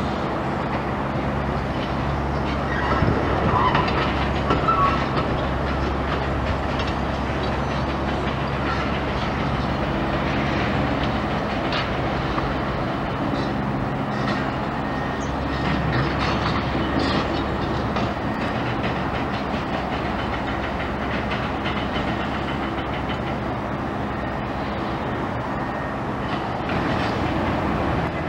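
Heavy machinery droning steadily, with scattered metallic clanks and squeals.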